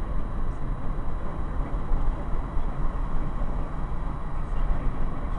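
Car travelling at highway speed, heard from inside the cabin: a steady low rumble of road and engine noise.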